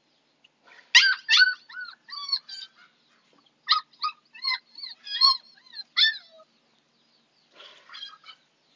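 Six-week-old Husky puppy whimpering and yelping while held for a vaccine injection: a run of short, high cries that arch up and down in pitch, starting about a second in and stopping around six seconds, with a few fainter cries near the end.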